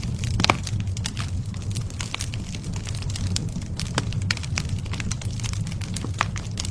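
Wood fire crackling: irregular sharp snaps and pops over a steady low rumble of the flames, with one louder snap about half a second in.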